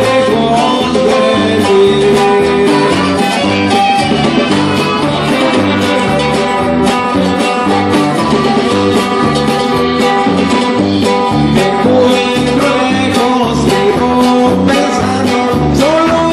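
Live norteño band playing with a steady beat: accordion and saxophone carry the melody over bass, guitar and drums, heard loud through the stage sound system.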